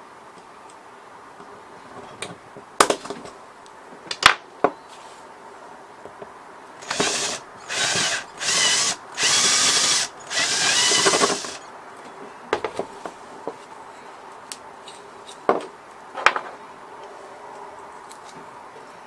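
Cordless drill fitted with a step drill bit, running in about five short bursts as it bores an 8 mm hole through a small bottle cap held in a wooden block. A few sharp knocks and clicks come before and after the drilling.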